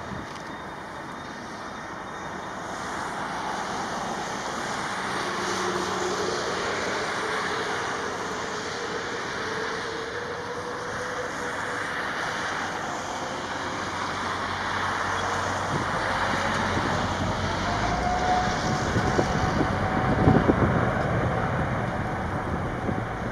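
Airbus A330-900's Rolls-Royce Trent 7000 turbofans spooling up to takeoff thrust: steady jet engine noise that slowly grows louder, with a whine climbing steadily in pitch.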